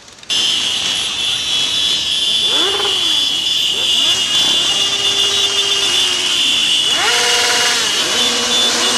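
Several motorcycle engines idling and revving, their pitch rising and falling again and again, over a steady high hiss. It starts abruptly just after the beginning.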